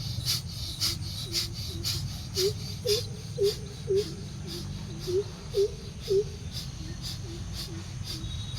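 Rapid, forceful bellows breathing of bhastrika pranayama, about three sharp breaths a second, dying away about three seconds in. Under it, and on after it, a repeated short low cry that rises and falls, about twice a second.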